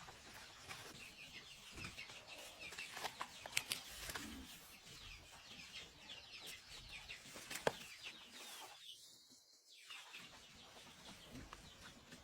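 Chickens clucking and cheeping faintly in many short, high calls, with a few sharp clicks among them.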